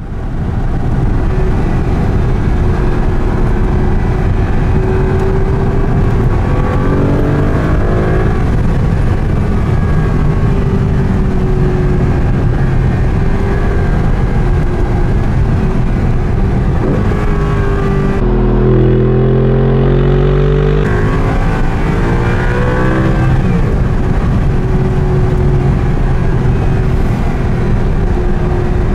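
2008 Audi R8's 4.2-litre V8 engine running on the move, over a steady rushing noise. Its pitch rises and falls a few times as it accelerates, most clearly about eight seconds in and again between about seventeen and twenty-three seconds in.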